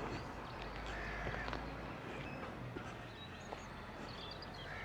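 Crow cawing, one short call about a second in and another near the end, with faint higher bird chirps.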